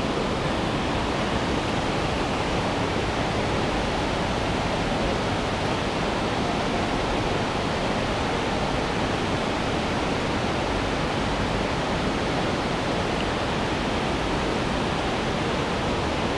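Steady rushing of river water, an even noise with no change throughout.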